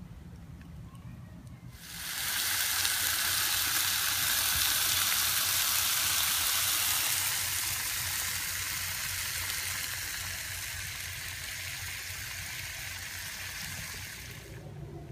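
Steady, loud rushing hiss. It starts abruptly about two seconds in, eases off a little partway through and cuts off sharply near the end.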